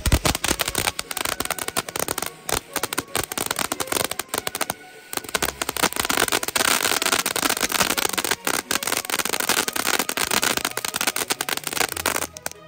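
Two snow-cone novelty ground fountain fireworks spraying sparks with dense, rapid crackling and popping, with a brief lull about five seconds in. The crackling cuts off suddenly near the end.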